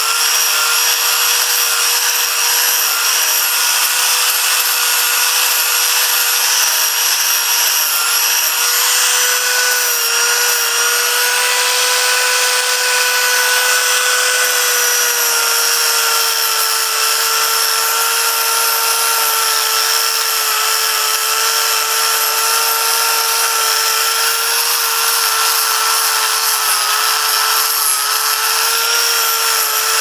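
Angle grinder with a 4-inch grinding pad running continuously with a steady high whine as it grinds a hollow into a clamped block of timber; the pitch shifts slightly now and then as the pad works the wood.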